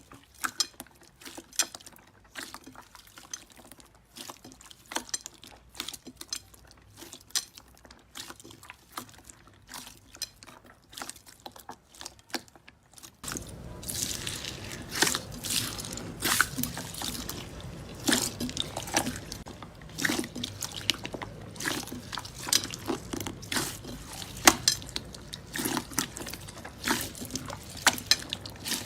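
Slime squeezed and worked by hand, making many small wet clicks and pops. About thirteen seconds in, the background gets louder and the pops grow louder.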